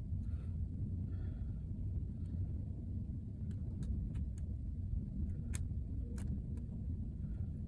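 Steady low rumble with scattered small sharp clicks, the light ticks and taps of screws, small metal parts and tools being handled on a laptop under repair.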